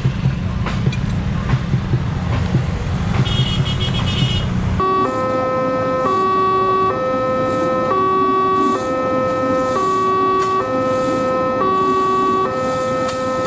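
A heavy low rumble for about the first five seconds, then it cuts to a loud electronic two-tone alarm alternating between a higher and a lower note roughly once a second, typical of a railway level-crossing warning.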